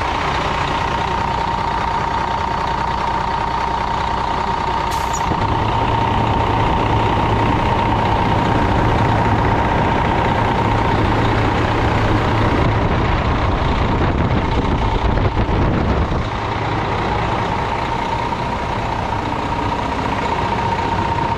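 Diesel engine of an International 7600 dump truck running steadily, with a steady whine over it. The low engine note becomes fuller and louder about five seconds in and drops back about sixteen seconds in.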